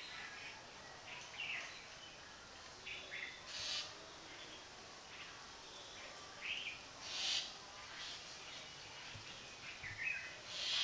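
Outdoor ambience with birds calling now and then: a handful of short chirps, and about every three to four seconds a brief hissy burst, over a faint steady background.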